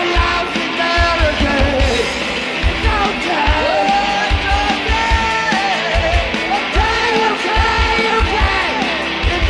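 Garage rock band playing live: a male singer's voice over electric guitars and drums, with a steady kick-drum beat.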